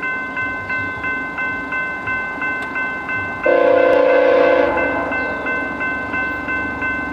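Level-crossing warning bell ringing about three times a second as a Via Rail passenger train approaches. About halfway through, the train's horn sounds one blast of a little over a second, the loudest thing in the clip.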